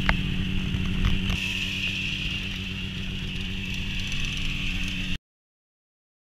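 Ski-Doo Skandic 377R snowmobile's two-stroke engine idling steadily, with a couple of knocks about a second in; the sound cuts off suddenly about five seconds in.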